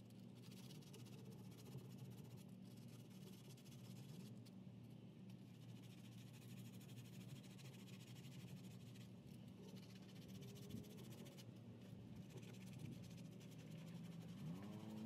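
Near silence: a faint steady low hum, with a faint pitched sound rising in near the end.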